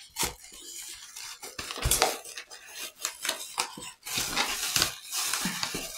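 Polystyrene foam wrapping being pulled open from around a ceramic cup: rustling and crackling handling noise with scrapes and small knocks, in bursts about two seconds in and again around four to five seconds.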